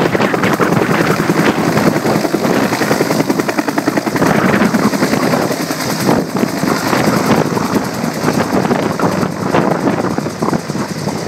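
Firefighting helicopter's rotor chopping rapidly and loudly, easing slightly near the end.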